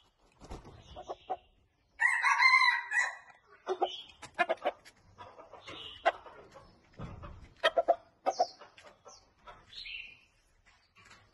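Red junglefowl rooster crowing once, a loud, short crow about two seconds in, with shorter calls and scattered sharp clicks and rattles around it. Wings flap in the first second or so.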